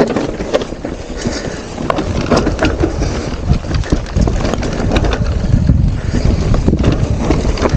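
Mountain bike descending a rough singletrack: a steady rumble of wind on the microphone and tyres rolling over the ground, with frequent clicks and knocks from the bike rattling over rocks and roots.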